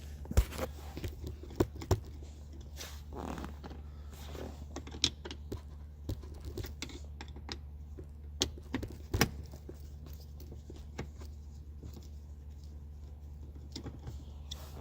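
Scattered clicks, taps and short scrapes of a screwdriver and plastic console trim being handled as Phillips screws are taken out, over a steady low hum.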